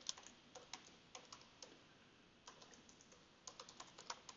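Faint keystrokes on a computer keyboard as a command is typed: quick runs of taps with a short pause just before the middle.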